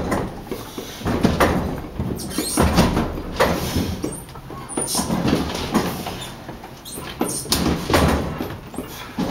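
Irregular knocks, scrapes and squeaks of a heavy refrigerator being carried and slid up a stairway, bumping against the steps and walls.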